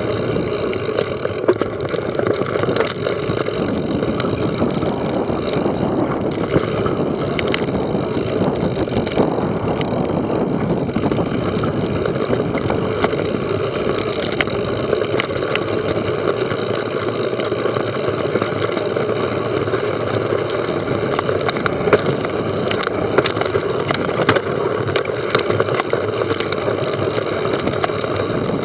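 Mountain bike ridden down a rough enduro trail: steady rolling and rushing noise with scattered clicks and rattles throughout.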